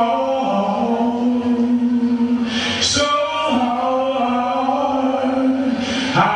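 A man singing into a microphone, holding two long drawn-out notes with a short break about three seconds in.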